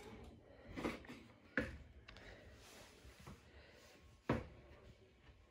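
Kitchen utensils knocking on a worktop while gingerbread dough is rolled and cut: soft knocks about one and one and a half seconds in, and a sharper knock about four seconds in.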